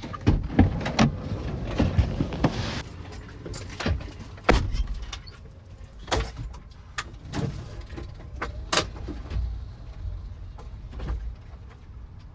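Scattered clicks, knocks and thuds around a car, over a low rumble, with a louder hissing stretch in the first few seconds.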